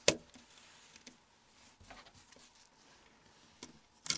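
A few sharp, faint clicks and taps as the Nokia N81's plastic housing is handled and levered with a plastic pry tool: a louder click right at the start, scattered faint ones, and a short cluster near the end.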